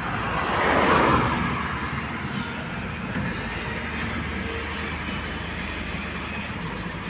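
Heavy diesel engine running steadily, with a louder rushing swell about a second in.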